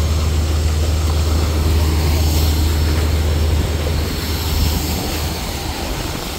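Borewell drilling rig with its air compressor running: a loud, steady low drone with a rushing hiss over it, easing slightly near the end.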